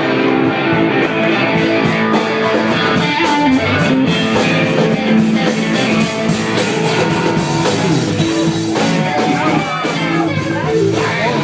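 Loud rock music with electric guitar and a drum kit, starting abruptly just before and playing steadily throughout.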